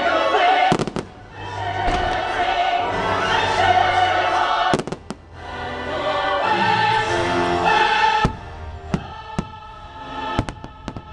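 Fireworks show soundtrack with a swelling choir and orchestra. Sharp firework bangs cut through the music about a second in, near five seconds, at about eight seconds, and in a quick cluster near the end.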